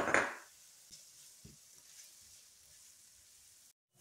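Diced onion, garlic and chopped serrano chiles frying in hot oil in a nonstick frying pan. A short, loud sizzle at the very start dies down within about half a second to a faint, steady sizzle with a few small pops, which breaks off near the end.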